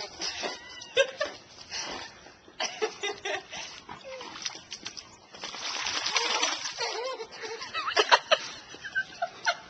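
Dogs splashing and paddling in water, with a longer stretch of splashing about six seconds in, over a woman's short bursts of laughter.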